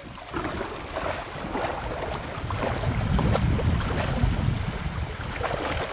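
Wind buffeting the microphone aboard a moving boat, over the rush of the boat through water; the low rumble swells about three seconds in.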